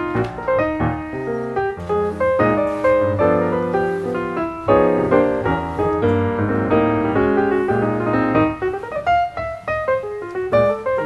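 Background piano music, a busy run of notes over a bass line; the low notes drop away about eight and a half seconds in.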